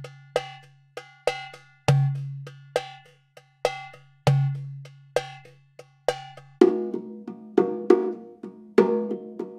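Cuban-style percussion rhythm: bell-like ringing strikes about two a second over a low boom every couple of seconds. About two-thirds of the way in the pattern changes to a denser run of pitched drum hits.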